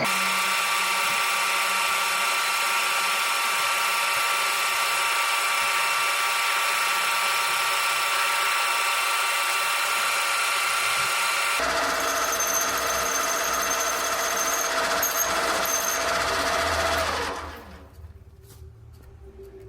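Electric power tool running with a steady whine, its sound changing abruptly about twelve seconds in, then spinning down with falling pitch about seventeen seconds in.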